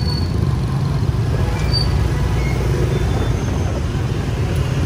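Street traffic dominated by motorbike engines: a steady low rumble.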